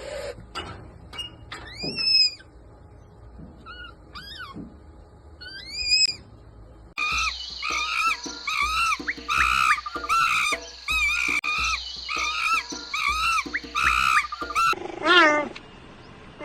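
Animal calls: a few separate high calls rising and falling in pitch, then a dense chorus of many overlapping repeated calls for about eight seconds, and a longer call near the end.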